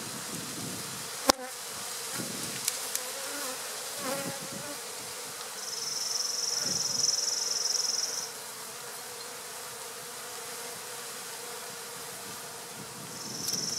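Honey bees buzzing over an open hive, with a steady hum. About a second in there is one sharp wooden knock as a hive frame is slid back down into the box, followed by a few light ticks. A high hiss comes in for a couple of seconds in the middle.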